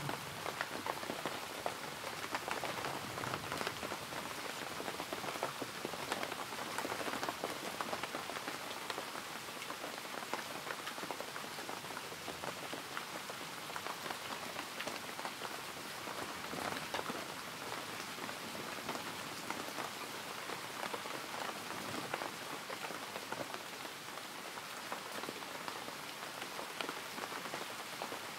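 Steady rain falling, a continuous patter of many small drop ticks.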